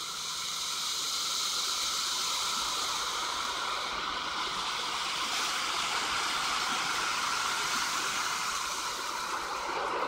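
Car wash water spray hitting the car's body and windows, heard from inside the cabin as a steady rushing hiss.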